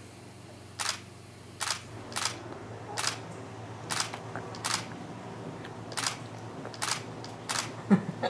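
Camera shutter clicking about nine times at irregular intervals of roughly a second, a burst of photos being taken.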